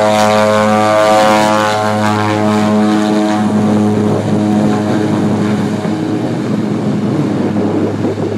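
De Havilland Canada DHC-6 Twin Otter floatplane's twin turboprop engines at takeoff power: a loud, steady propeller drone. About three seconds in it turns into a rougher rush and fades gradually as the plane pulls away.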